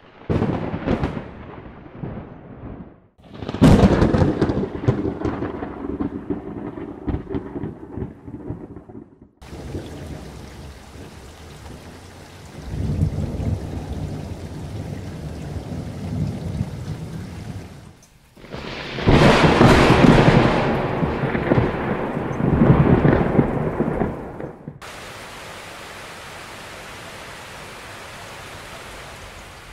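Heavy rain pouring onto a waterlogged street, with loud rumbling surges about three and a half seconds in and again about nineteen seconds in, the first fading over several seconds. The sound changes abruptly several times between loud surges and a steadier, quieter hiss of rain.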